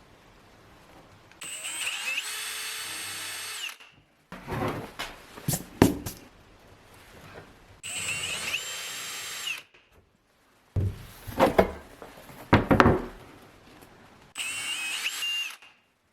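Power drill running in three short bursts of about two seconds each, a steady whine that shifts pitch slightly as each burst ends. Between the bursts come irregular louder knocks and scrapes.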